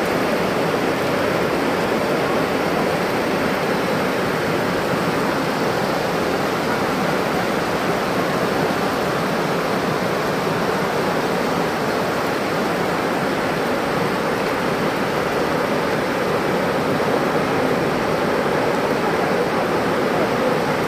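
Muddy floodwater of a cloudburst flash flood rushing down a valley in a steady, unbroken noise.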